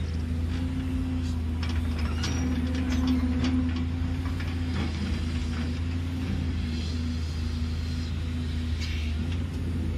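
JCB tracked excavator's diesel engine running steadily under hydraulic load as the boom lowers and the bucket digs into the dirt. Scattered clanks and scrapes of the bucket in soil and stones come through, mostly in the first half.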